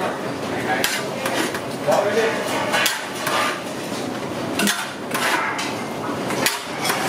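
Long metal ladle knocking and scraping against a large brass kadai as a heap of sliced brinjal is stirred and tossed, with irregular clanks about once a second.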